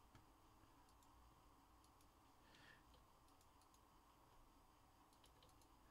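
Near silence: room tone with a few faint, scattered clicks and a brief soft rustle about two and a half seconds in.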